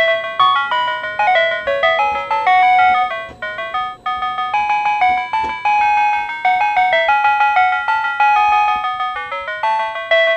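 PATLITE electronic annunciator on a Tobu Railway platform playing its looping signal-clearance chime melody, a run of clear stepped electronic tones. It sounds while the starting signal is clear, telling the crew of a one-man train that the line ahead is open for departure.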